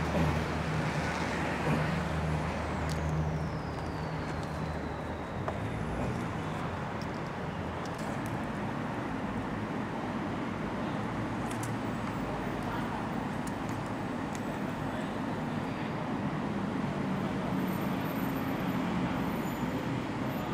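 Steady background traffic noise, with a low engine hum in the first few seconds and again near the end. A faint high tone slides down in pitch a couple of seconds in, and a few light clicks sound.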